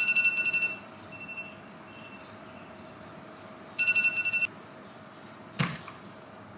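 Electronic wake-up alarm ringing: a high trilling beep in short bursts, twice, about three seconds apart. Near the end comes a brief rustle of bedding as the sleeper stirs.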